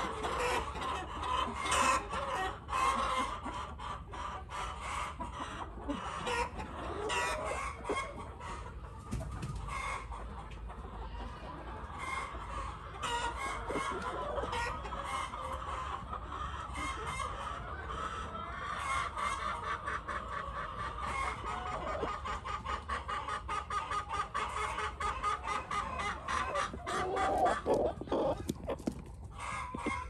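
Hens clucking in rapid, steady chatter, with one longer drawn-out call near the end.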